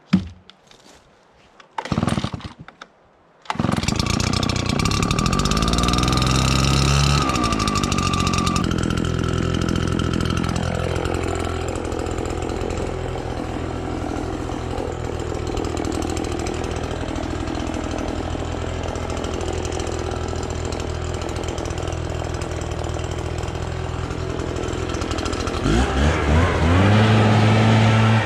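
Small gas engine started with a couple of short pulls, catching about three and a half seconds in and then running steadily, with the pitch rising as it revs up near the end.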